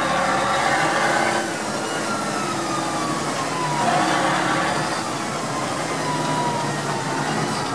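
Tatra 813's air-cooled V12 diesel running steadily as the truck drives, with a whine that slides down in pitch through the middle and short whines near the end.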